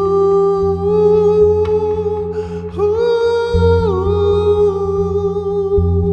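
A voice holding a long sung "ooh" over a low sustained drone. The note stays steady, steps up about three seconds in, and falls back a second later.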